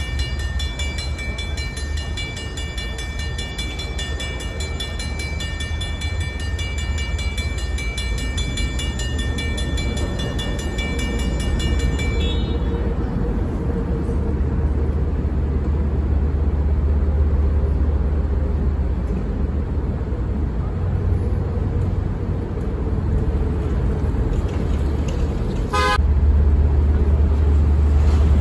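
Railroad grade-crossing warning bell ringing steadily while the crossing signals malfunction, then stopping about twelve seconds in. A steady low rumble runs underneath, and a short horn toot sounds near the end.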